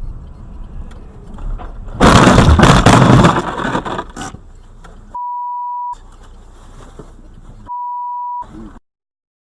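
Dashcam recording of a car crash: low rumble of the car on the road, then about two seconds in a very loud collision impact with crashing and scraping that lasts over a second. It is followed by two steady high censor beeps, each under a second, and the sound cuts off near the end.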